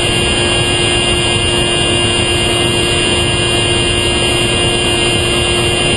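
Onboard audio of a Specter v2 FPV plane in flight: the steady drone of its electric motor and propeller under a heavy rush of wind noise, with a constant low hum and a thin high whine that hold one pitch throughout.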